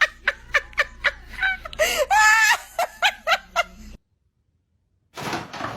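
A person laughing in quick, repeated bursts, with one longer rising-and-falling laugh about two seconds in. The sound cuts off abruptly to a second of silence, then other sound starts again.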